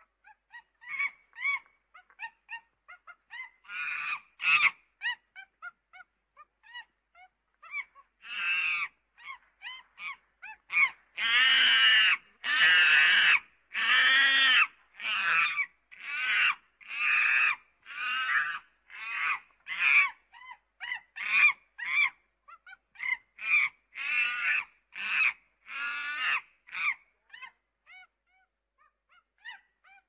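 Chimpanzee calling: a run of short calls that builds into several long, loud screams about halfway through, then goes on in quick, repeated calls that die away near the end.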